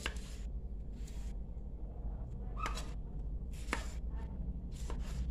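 Kitchen knife slicing tomatoes on a thick wooden chopping block, the blade tapping the wood a few times, roughly a second apart, over a steady low hum.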